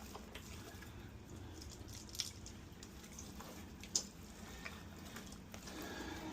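Quiet wet handling sounds as hands rub seasoning into a raw turkey, with a couple of sharp little clicks, about two and four seconds in.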